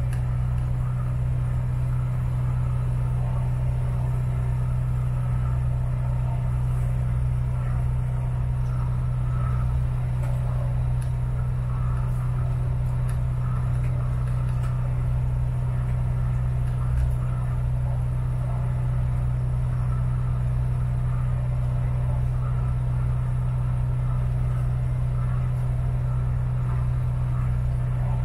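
Saga 27AC motorboat's engine running at a steady speed: a constant low drone that does not change in pitch or level.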